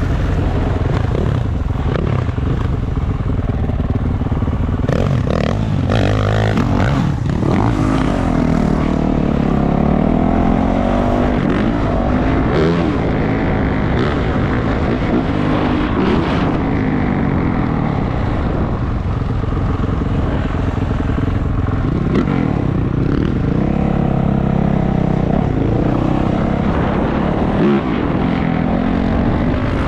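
450cc four-stroke dirt bike engine being ridden, its pitch rising and falling again and again as the throttle is opened and closed.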